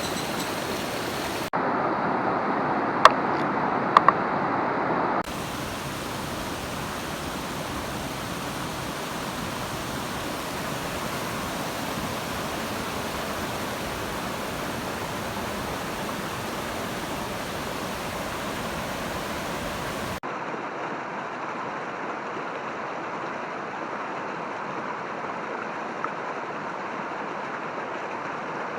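Mountain stream water rushing in a steady, even noise, shifting abruptly in level and tone a few times across cuts between shots. Two sharp clicks sound about three and four seconds in.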